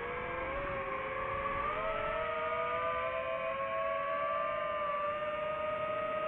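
FPV drone's motors and propellers whining steadily, the pitch stepping up slightly about two seconds in and then holding.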